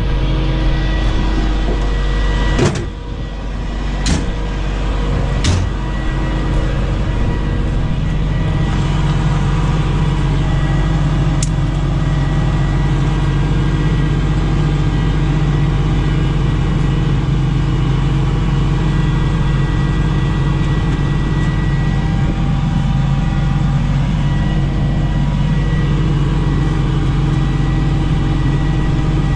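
Tow truck engine running steadily at idle, with a few sharp metallic knocks in the first six seconds.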